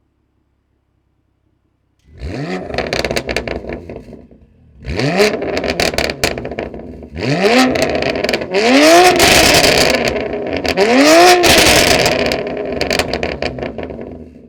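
BMW M2 Competition's twin-turbo straight-six revved through a Milltek cat-back and equal-length mid pipe: five quick rev blips, each climbing and falling back, with crackles as the revs drop. It starts about two seconds in after silence.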